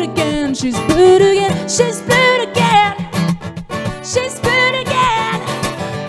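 A woman singing over her own strummed acoustic guitar, holding and sliding between notes.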